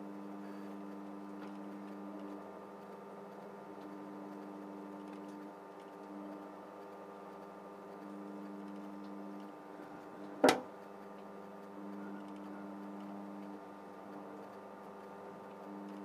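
Hinari microwave oven running, a steady low mains hum whose tones drop out briefly now and then, while a PCB soaked in white spirit burns inside. About ten seconds in comes a single sharp loud crack.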